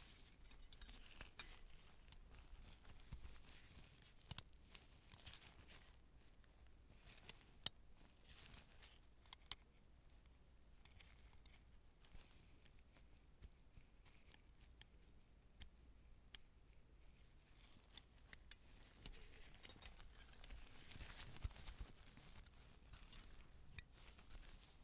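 Metal surgical instruments clicking and snipping: scattered sharp clicks with no steady rhythm, the sharpest about eight seconds in, and a soft rustle a few seconds before the end.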